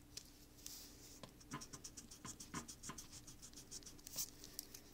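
Pen writing on paper: a run of short, faint, irregular scratching strokes, the strongest about four seconds in.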